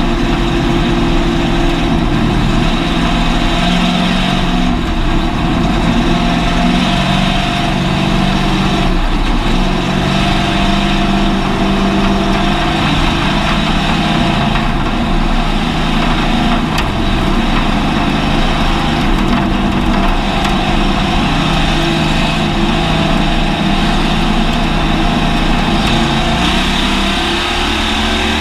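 Hobby stock race car's engine running hard, heard from inside the car's cabin over steady road and wind noise, its note shifting up and down several times with the throttle.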